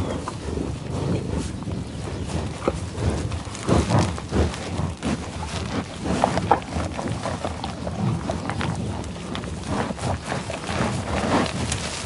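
A buffalo (bison) sniffing and eating in tall grass: irregular snuffling breaths and crunching, tearing noises of grazing, louder about four and six and a half seconds in.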